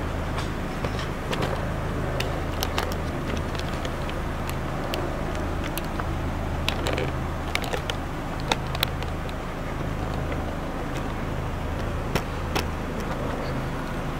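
A car engine idling steadily with a low hum. Scattered light clicks and taps are heard over it, two sharper ones near the end.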